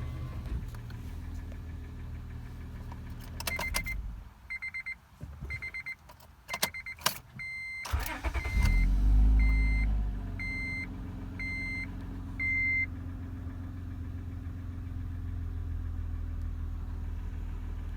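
Acura TL's V6 cranking and starting about eight seconds in, revving up briefly and then settling into a steady idle, while the car's warning chime beeps about once a second. It is a cold start, and the owner asks whether the engine has rod knock.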